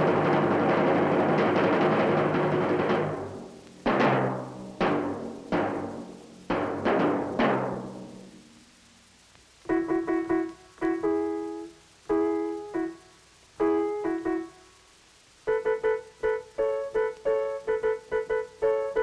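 Film music. A full sustained passage gives way about three seconds in to a string of struck notes, each ringing and dying away. Then come short staccato keyboard-like notes in quick rhythmic groups, the later ones stepping between a few pitches.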